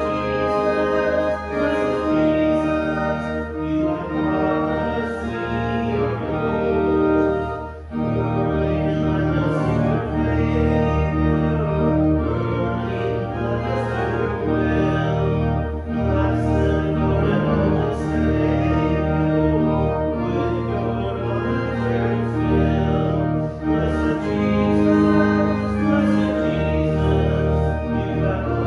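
Church organ playing a hymn in held chords that change every second or so, with a brief break between phrases about eight seconds in.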